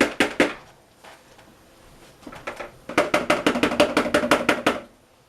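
A utensil stirring soap batter briskly in a mixing container, clicking against its sides about seven times a second. The stirring stops about half a second in and starts again for a second run of nearly two seconds from about three seconds in.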